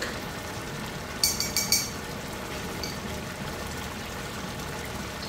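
A large pot of chickpeas, tomatoes and spices in liquid bubbling steadily on the heat. About a second in comes a quick run of about five high clinks.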